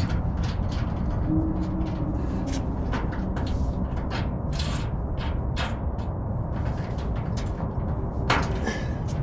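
Irregular metallic clicks and clacks of hand tools and hardware, with a louder clack near the end, as a fuel transfer tank's mounting bolt is fastened. A steady low rumble runs underneath.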